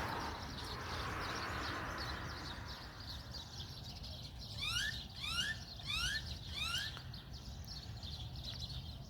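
A flock of sparrows chirping busily around scattered bird food. About halfway through, one bird gives four quick rising whistled calls.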